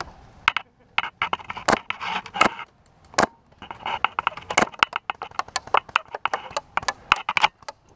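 Airsoft guns firing: many sharp cracks in irregular quick strings, with crunching and rustling between the shots.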